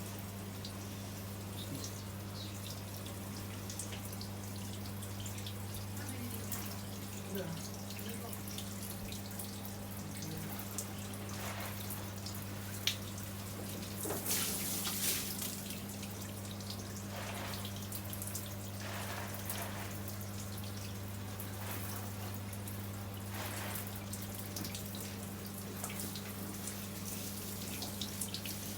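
Water dripping off a Christmas tree that has just been rinsed under a shower: irregular drips, with a brief louder splash of water about halfway through. A steady low hum sits underneath.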